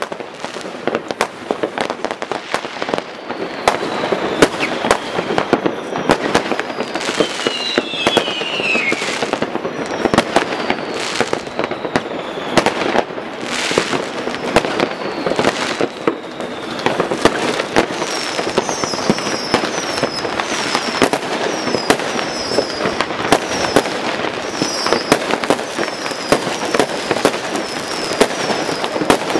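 Many fireworks and firecrackers going off at once in a dense, unbroken run of bangs and crackles, with one whistle that falls in pitch about eight seconds in. From about eighteen seconds in, a short high chirp repeats roughly once a second over the bangs.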